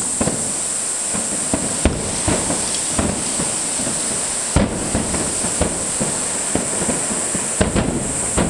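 Aerial fireworks shells bursting in a barrage: many sharp bangs at irregular intervals, a heavier one about halfway through and a quick cluster near the end, over a steady high-pitched hiss.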